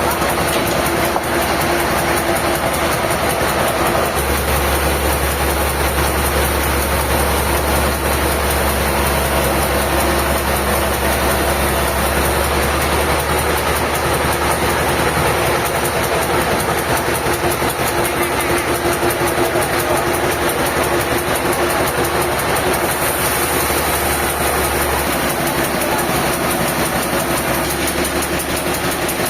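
Diesel engine running steadily at a constant speed, with a fast even clatter.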